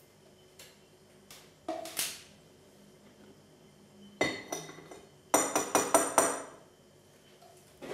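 Metal mesh kitchen sieve knocked rim-first against a ceramic plate in a quick series of about six or seven ringing clinks, knocking the rinsed insects out. A few lighter knocks and handling sounds come before.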